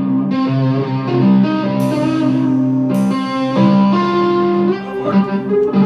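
Live band playing: electric guitars holding chords that change every second or so, with two cymbal crashes about two and three seconds in.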